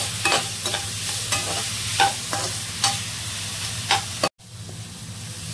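Tomatoes, onions and tamarind sizzling in oil in a kadai, being sautéed soft, with about six sharp scrapes and clacks of a slotted metal spatula against the pan. The sound cuts out briefly a little past four seconds, then the sizzling resumes more softly.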